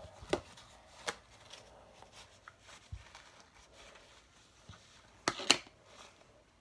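Paper towel rubbing and crinkling against a small plastic lid as it is wiped clean, with a few light plastic clicks. The loudest handling noise comes about five seconds in.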